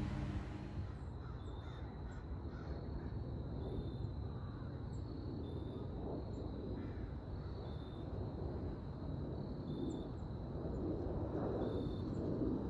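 Twin-engine jet airliner passing high overhead, a steady low rumble, with bird calls over it that are loudest near the end.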